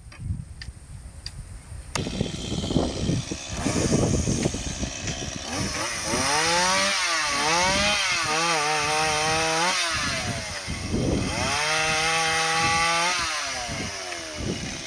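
A mini chainsaw cutting tree branches, heard as two stretches of steady running. Each starts with the pitch dipping, and there is a short break between them.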